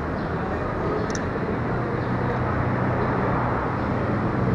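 Railway station platform ambience: a steady low rumble, with a low hum that sets in about a second and a half in and grows slightly louder.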